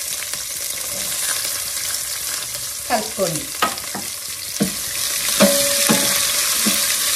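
Chopped onion and tempering spices sizzling in hot oil in a stainless steel pan, with a steady hiss. From about three seconds in, a spoon stirs the mix, scraping and knocking against the pan.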